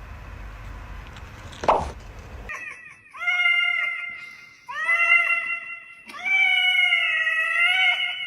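A cat meowing: three long, drawn-out meows one after another, starting a couple of seconds in.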